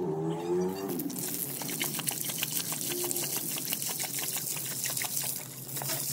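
Water spraying from a garden hose and splashing onto a concrete floor as a Rottweiler drinks from the jet, with many quick irregular splashes and laps.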